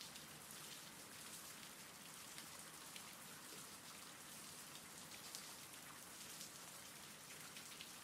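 Faint, steady rain: an even hiss with tiny scattered ticks of drops.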